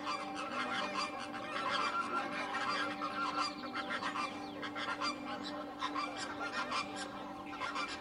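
A flock of flamingos calling: many goose-like honks overlapping continuously.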